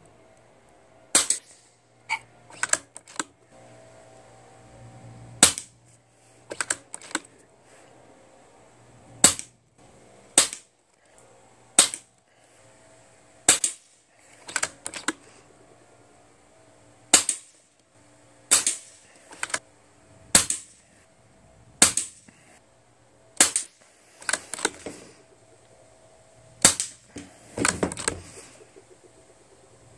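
Airgun Technology Uragan Compact .177 PCP air rifle firing shot after shot, a sharp crack every one to two seconds, some coming in quick pairs with lighter clicks between.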